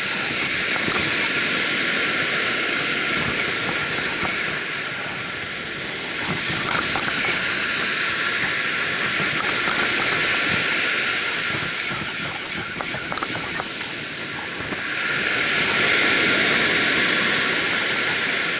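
Surf washing on a sandy beach with wind hissing over the microphone, swelling twice as waves come in.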